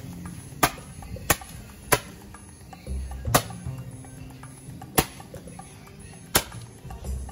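Fireworks going off: six sharp cracks, the first three about two-thirds of a second apart, the last three spaced more widely.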